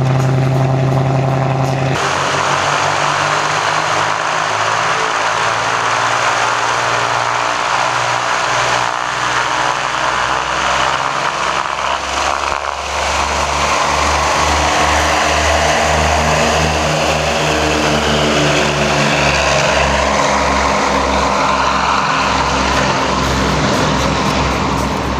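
Lockheed P-38 Lightning's twin Allison V-12 piston engines and propellers running loudly. The engine note shifts about two seconds in and again about halfway through.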